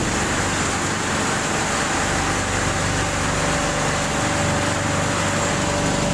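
Egg tray making machinery running with a steady mechanical drone and low hum, unchanging throughout.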